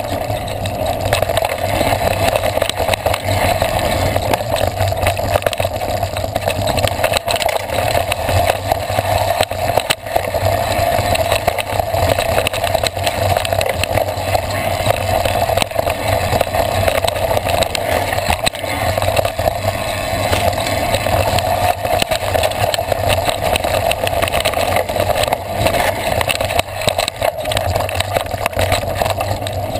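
Mountain bike descending a dirt trail, heard from a handlebar-mounted camera: a steady loud rush of wind and tyre rumble, with constant small clicks and rattles from the bike over bumps.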